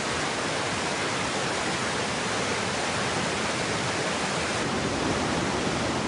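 River water rushing over a low rock-ledge waterfall and foaming through rapids: a steady, unbroken rush.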